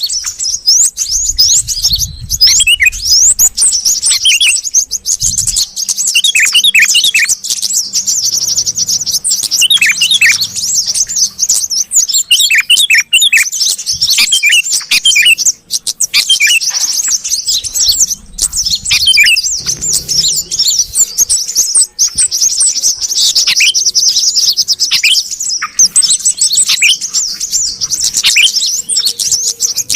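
Bird-lure recording of yellow-vented bulbuls and sooty-headed bulbuls calling busily: a dense, overlapping chatter of high chirps and quick falling notes with no pause.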